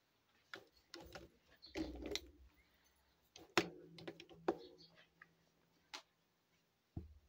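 Small plastic toy kitchen utensils being handled and set down on a table, making a scattered series of light clicks and taps.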